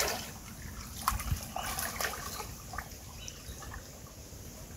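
Water splashing briefly at the start, then faint trickling and dripping with a few light knocks.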